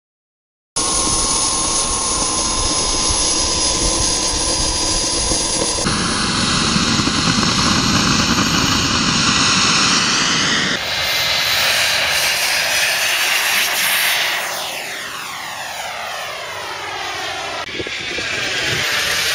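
RC model F-16 jet's engine running with a high, steady whine and rising in pitch as it is throttled up. Later the jet is airborne and its whine sweeps as it passes over, with a sudden jump in the sound where clips are joined.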